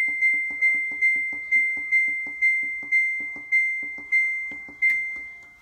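Samsung top-load washer control panel beeping once for each press of the Delay End button, about two steady high beeps a second with a soft click under each. The presses count the display up toward 17 to enter the washer's smart install test mode.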